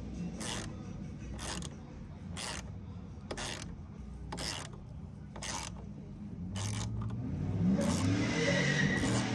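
A motor vehicle's engine running, with a sharp click about once a second. From about seven seconds in, an engine revs up and down and grows louder over a rushing hiss.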